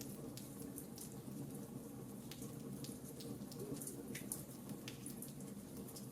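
Wood fire in a fireplace crackling: scattered, irregular sharp pops and snaps over a steady low rumble of the burning.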